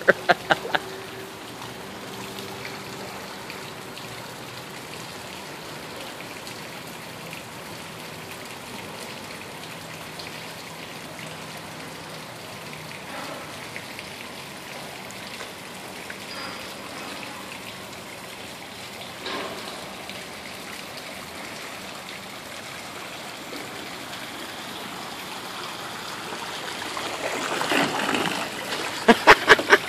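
Steady splashing and trickling of water stirred by a small electric trolling-motor boat. Near the end it grows louder as the boat passes close and the propeller of its 17 lb thrust Sears trolling motor churns the water.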